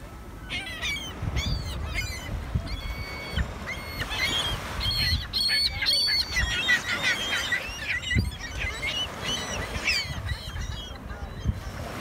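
A flock of gulls calling: many short, overlapping calls, busiest in the middle and thinning out near the end.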